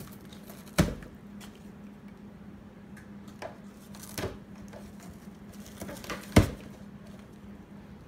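Savannah cat biting and ripping at the edge of a cardboard box: irregular sharp tears and crunches of cardboard, the two loudest about a second in and just past six seconds in, over a faint steady low hum.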